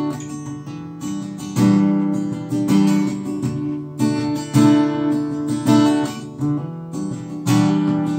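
Acoustic guitar strumming chords in an instrumental passage of a song, with a strong strum about every second and no singing.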